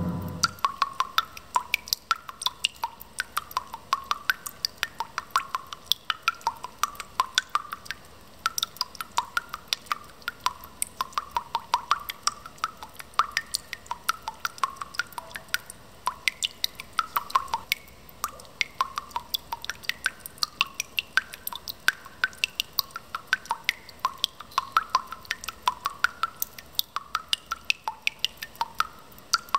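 Dense, irregular clicking with small pitched plinks like water dripping, several a second, in a steady texture with no voice or melody.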